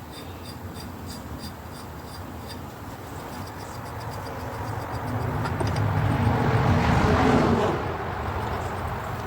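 A passing motor vehicle, growing louder to its loudest about seven seconds in, then fading.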